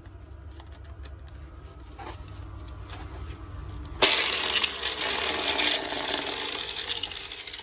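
Tool Shop 4½-inch angle grinder starting suddenly about four seconds in and running loud and harsh for about three seconds before tapering off. The grinder is faulty and gives off smoke as it runs.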